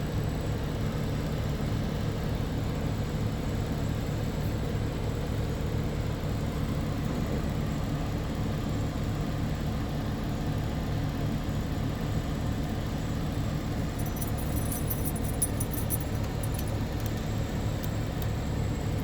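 Truck engine idling steadily. Light, fast high-pitched clicking or jingling comes in for a few seconds near the end.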